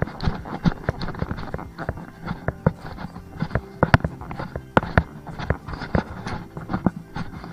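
Footsteps on a hiking trail: irregular crunches and knocks, several a second, over a steady low hum.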